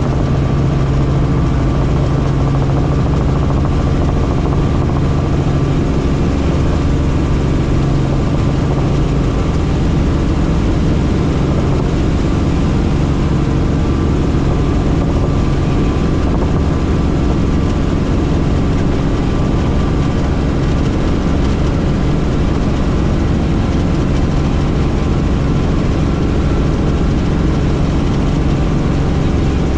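Helicopter in flight: a loud, steady drone of engine and rotors with a low hum that weakens about six seconds in.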